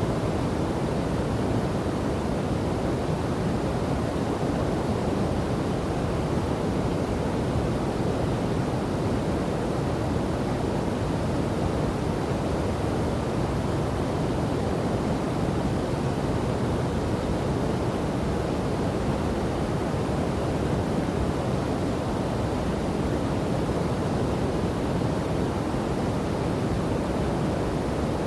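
Steady rushing of river water and a waterfall: an even, unbroken roar with most of its weight in the low and middle range and no separate splashes standing out.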